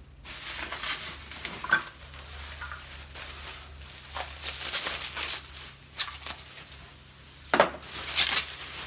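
Bubble wrap rustling and crinkling as it is pulled out of a crate and unwrapped from a glass bowl, with several sharper crackles, the loudest pair near the end.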